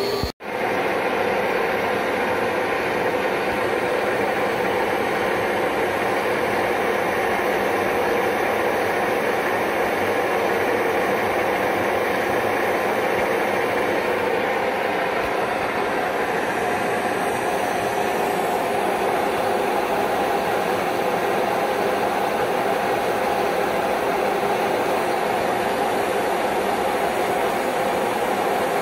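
Soviet 1616 screw-cutting lathe running steadily under load, its tool cutting into a chuck backplate blank as the disc spins.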